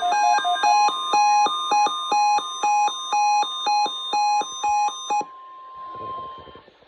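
NOAA Weather Radio alert: the steady 1050 Hz warning alarm tone with a loud beeping alarm pattern over it, about two beeps a second. The beeps stop about five seconds in, and the steady tone carries on faintly a little longer before cutting off, leaving radio hiss.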